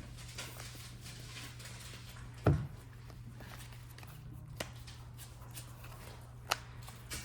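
Trading cards handled and set down on a table during play: a loud low thump about two and a half seconds in, then two sharp clicks, over a steady low hum.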